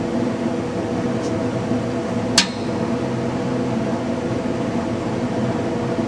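Steady electrical hum, with one sharp click a little over two seconds in: the box fan's switch being turned off.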